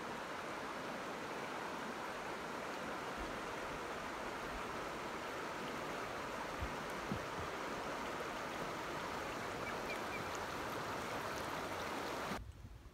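Shallow creek water running over rocks, a steady rush that cuts off suddenly near the end.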